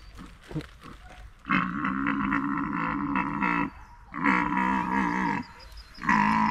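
A deer stag calling: three long, deep calls, the first the longest, the third starting near the end.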